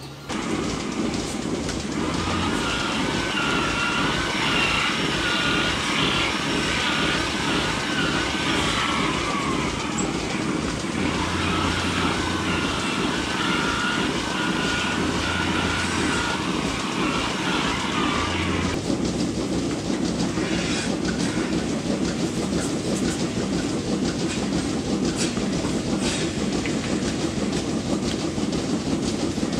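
Milking parlour machinery running steadily: a continuous mechanical rumble with a rhythmic clatter. From about two seconds in until a little past the middle, a wavering high-pitched squeal runs over it.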